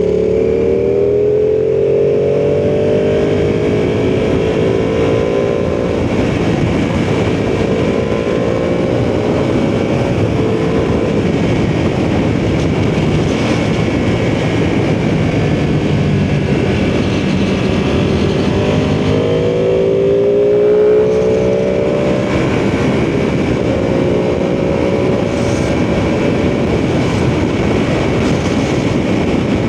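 Ducati sportbike engine heard from the rider's seat, rising in pitch as it accelerates near the start and again about two-thirds of the way in, with steady engine and riding noise between.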